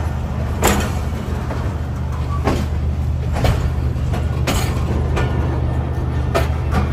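Tezgam Express passenger train running on the approach to Karachi: a steady low drone with about six sharp clacks from the wheels and couplings at uneven intervals.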